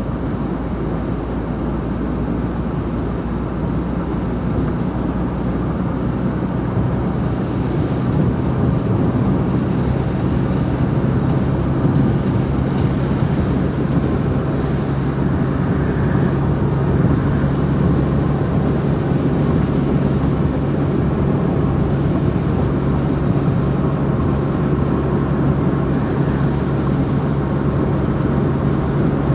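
Car driving at speed on a wet road, heard from inside the cabin: a steady rush of tyre and road noise, joined about six seconds in by a steady low hum.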